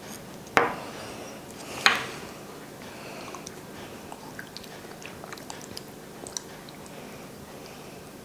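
Close-up wet eating and handling sounds of an agar-agar raindrop cake: two sharp smacks about half a second and two seconds in, then scattered soft clicks and ticks.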